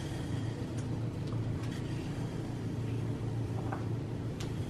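Steady low hum, with a few faint crinkles and clicks of plastic cling wrap being pulled off the roll and handled.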